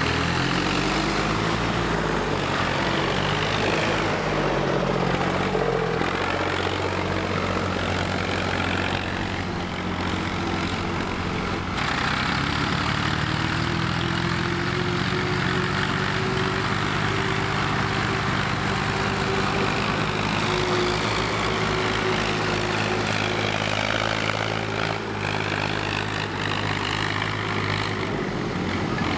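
Tractor diesel engine running under changing load, its pitch rising and falling. About twelve seconds in the sound changes abruptly to a steadier engine note that slowly rises and then falls.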